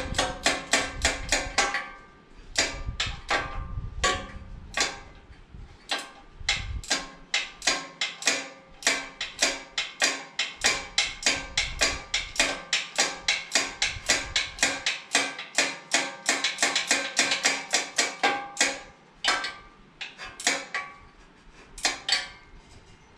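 Hand ratchet clicking stroke after stroke with a metallic ring, about three or four clicks a second, as bolts are run down. There is a brief lull about two seconds in, and the clicking thins out near the end.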